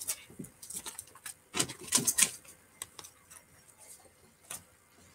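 Stiff stencil brush dabbed and brushed over a stencil onto paper: a run of quick, dry taps and scratches, thickest about two seconds in.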